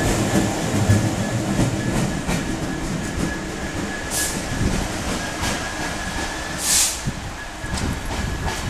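GB Railfreight Class 66 diesel-electric locomotive, with its EMD two-stroke engine, running light engine past and away, its engine and wheel noise fading as it goes. A thin steady high tone runs through, and there are two short hisses about four and seven seconds in.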